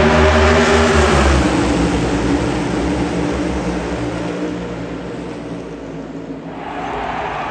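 A field of NASCAR Cup Series stock cars with V8 engines passing close by, loudest at first with the engine pitch dropping slightly as they go by, then fading as the pack moves away.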